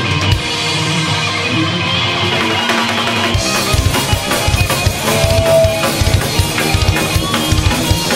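Live rock band playing an instrumental passage of experimental rock. Sustained chords hold for the first three seconds or so, then the drum kit comes in with a steady beat of kick and snare.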